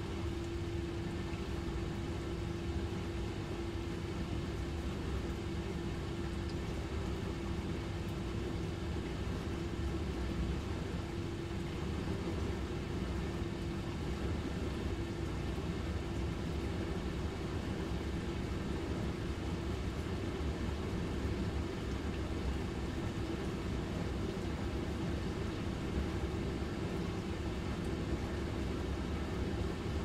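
Dishwasher running: a steady low rush of water with a constant motor hum. The hum's tone is clearest in the first part and grows less distinct about halfway through.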